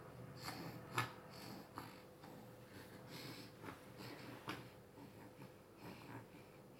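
A baby's faint sniffs and breathing, with a few soft clicks and rustles scattered through; the loudest click comes about a second in.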